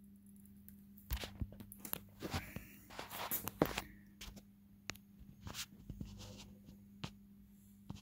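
Irregular scuffs, rustles and clicks of handling: a metal light-switch plate and its wiring being shifted about by hand, busiest in the first half, over a faint steady low hum.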